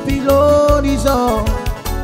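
Tahitian hula band music: a steady bass line and drum beat under a melodic lead that steps up and down in pitch.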